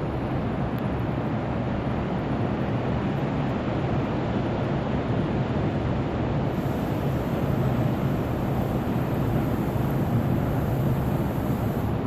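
Ocean surf with wind on the microphone: a steady rushing noise, heaviest in the low end, with no distinct events.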